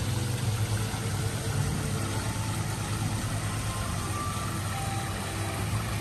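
Koi pond aeration and filtration system running: a steady low hum with an even rush of moving, bubbling water.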